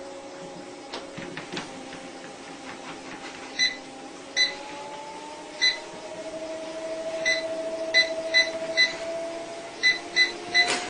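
A steady machine hum whose pitch rises a little about halfway through, with short electronic beeps, about ten of them, coming faster toward the end. Everything cuts off abruptly at the end.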